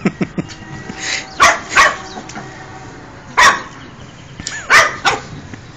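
Small fluffy white puppy barking in play: four short, sharp barks, two close together about a second and a half in, then one near the middle and one near the end.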